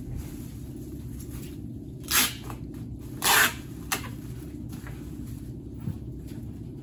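Parcel packing: two short rasping noises a second apart, then a sharp click, over a steady low hum.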